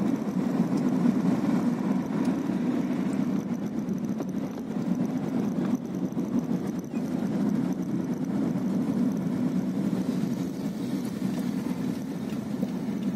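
Steady engine and road noise of a moving vehicle, heard from on board while it drives along a street.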